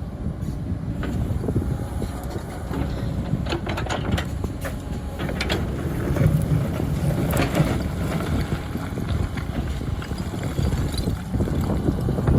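Diesel engines of heavy earth-moving machinery running steadily with a low rumble. Scattered short clanks and knocks come through, mostly in the middle of the stretch.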